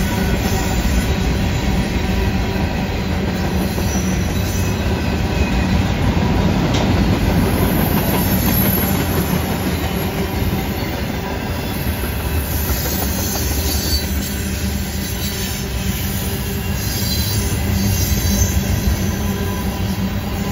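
Loaded freight cars (tank cars and covered hoppers) rolling past on a curve, a steady rumble of wheels on rail with clickety-clack, and high wheel squeal from the curve coming and going in the second half.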